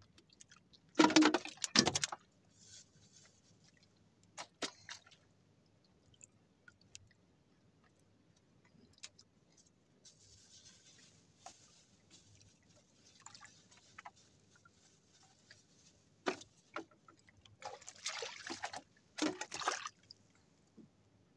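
Seawater splashing and dripping as a wet handline is handled over the side of a small boat, in a few short noisy bursts about a second in and again near the end, with softer trickling between.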